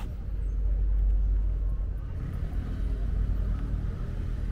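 Street ambience with a low rumble of passing car traffic that swells and fades.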